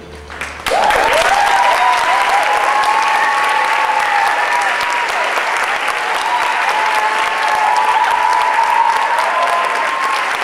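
Theatre audience applause, breaking out suddenly about a second in and carrying on steadily, with whoops and cheers over the clapping.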